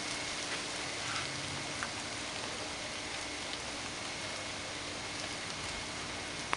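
Steady rain falling from an outer rain band of a hurricane, a even hiss with a few sharper drop ticks scattered through it, and little wind.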